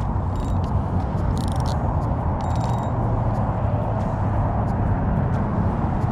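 Steady wind rumble on the microphone, with a few brief mechanical rasps in the first three seconds from a spinning reel being cranked.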